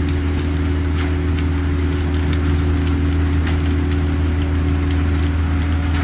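Concrete mixer truck's diesel engine running steadily while concrete pours down its chute, with light scattered ticks over it.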